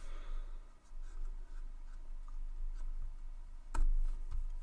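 Quiet room tone with a low steady hum and a few faint ticks, then one sharp computer click about three and three-quarter seconds in: the click that sets the LaTeX document recompiling.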